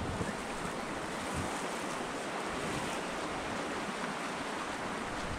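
Rushing white water of a river rapid, heard close up from an open canoe running through it, with gusts of wind buffeting the microphone.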